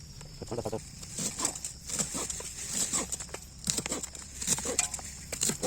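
A run of short, irregular knocks and clicks over a steady high hiss, with one brief pitched sound about half a second in.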